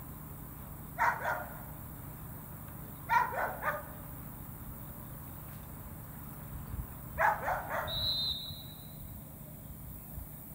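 Dog barking in three short bouts of a few barks each, spaced a couple of seconds apart. A brief steady high tone sounds just after the last bout.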